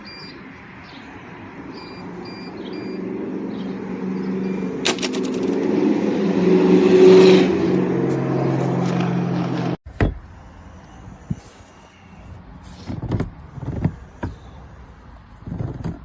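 Greenworks 80V brushless cordless lawn mower motor running with a steady hum that swells in loudness, then cuts off abruptly about ten seconds in, followed by a few knocks and clatter.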